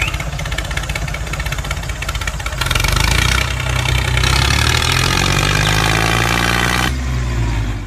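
Tractor engine running with a steady rhythmic chug. It gets louder about two and a half seconds in, its pitch falls gradually over the next few seconds, and it cuts off abruptly at the end.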